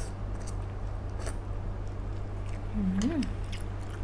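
Mouth sounds of a person eating spicy instant noodles: slurping and chewing with small wet clicks, and a short rising-then-falling 'mm' hum about three seconds in.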